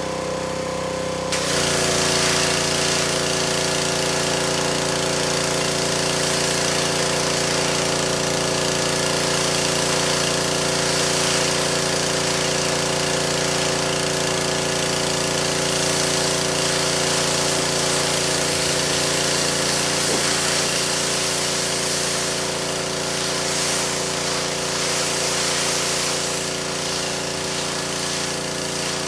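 Pressure washer running steadily, with the hiss of its spray starting about a second and a half in and carrying on.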